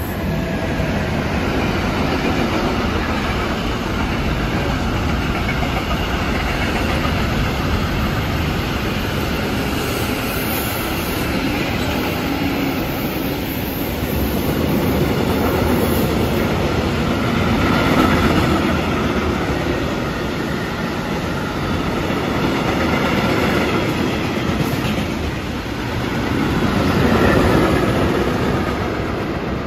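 A train running past on the tracks, loud and steady, swelling twice in the second half.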